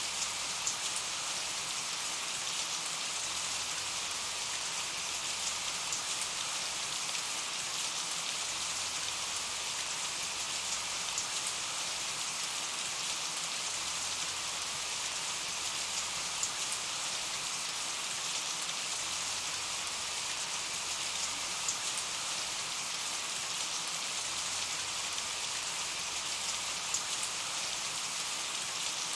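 Steady rain falling, an even hiss with scattered small drop clicks.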